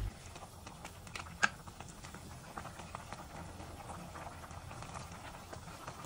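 Faint bubbling of a pot of curry simmering in a stainless steel saucepan, with light scattered clicks of a spatula against the pan and one sharper knock about a second and a half in.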